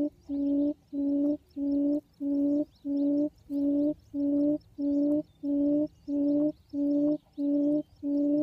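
Quail lure call played from a small device beside the trap: a low hoot at one steady pitch, repeated evenly about twice a second with short gaps.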